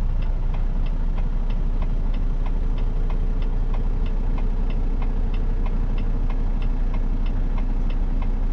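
Semi truck's Cummins X15 diesel engine idling steadily, with a regular ticking about two and a half times a second over it.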